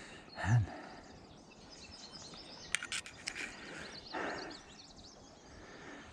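Faint outdoor ambience with birds chirping now and then, and a few sharp clicks about three seconds in.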